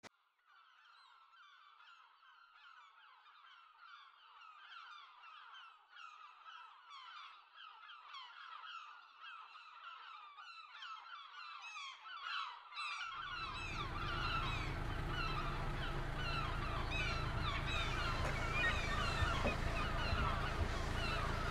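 A large flock of birds calling, many short downward-slurred cries overlapping densely, fading in and growing louder. About thirteen seconds in, a low steady rumble joins under the calls.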